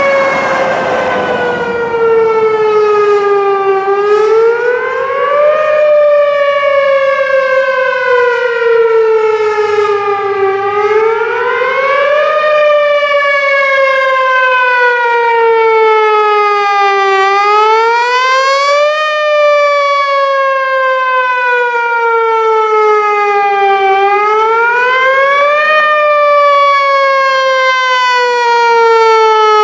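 Whelen Vortex R4 outdoor tornado warning siren sounding its attack signal. Its tone climbs quickly, then slides slowly down, about every six to seven seconds, four times over.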